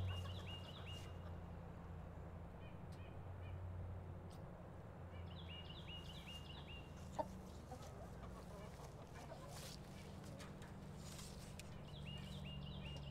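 Birds calling: a short phrase of quick, repeated chirps comes three times, at the start, about five seconds in and near the end, over a steady low hum. A single sharp click sounds about seven seconds in.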